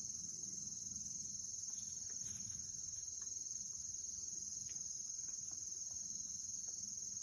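Steady chorus of crickets, one continuous high-pitched trill.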